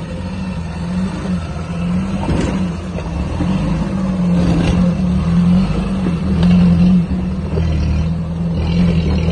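Suzuki Jimny's engine running steadily as the 4x4 crawls past over a dirt trail, with scattered crackles from its mud tyres rolling over twigs, leaves and stones. It grows louder as it passes closest, about seven seconds in.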